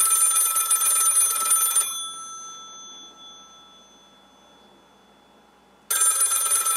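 Telephone bell ringing: a ring of about two seconds that trails off, then a second ring starting about six seconds in.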